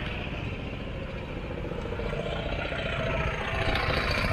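Road and engine noise of a moving car, heard from inside the cabin by a dash cam; a steady rumble that swells slightly near the end.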